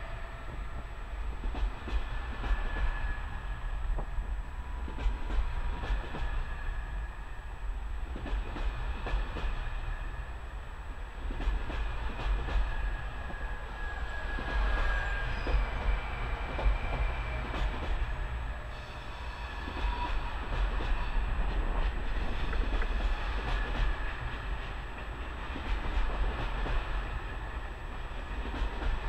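A long train of SNCB double-deck M6 coaches with a Class 18 electric locomotive rolling past: a steady wheel rumble with repeated clicks of the wheels over rail joints and points, and a thin high squeal now and then.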